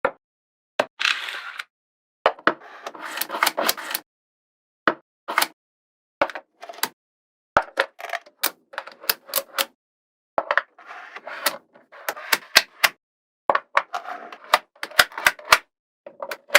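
Small magnetic balls clicking as they snap together and are handled: sharp single clicks between short bursts of rapid clicking and rattling.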